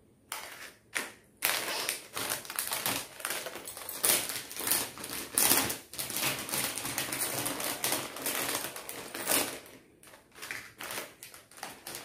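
Packaging and jewellery being handled during unboxing: a rapid run of sharp clicks, taps and rustles that thins out about ten seconds in.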